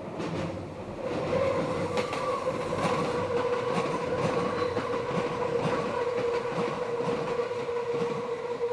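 Meitetsu electric train taking a sharp curve, its wheels squealing against the rails in a steady whine that sets in about a second in and holds. Under it run the rumble of the wheels and the clack of rail joints.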